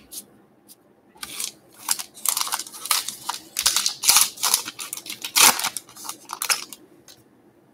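Wrapper of a baseball card pack being torn open and crinkled: a run of irregular rustling and crackling that stops near the end.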